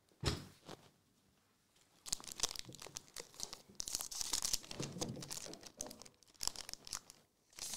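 A Magic: The Gathering booster-pack wrapper being torn open and crinkled in the hands, in a long run of crackling and a few shorter spells near the end. Just before, a dull thump as something is set down on the table.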